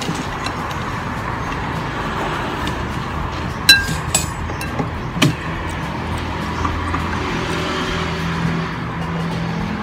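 Tableware clinking during a meal: a sharp, ringing clink of metal on a bowl a few seconds in, then two lighter clicks, over steady background noise with a low hum in the second half.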